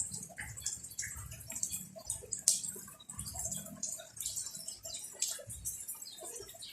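Rain dripping and pattering in irregular drops, with a sharp tap about two and a half seconds in.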